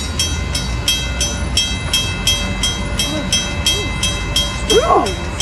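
Railroad crossing bell ringing steadily, about three strokes a second, over the low rumble of a train.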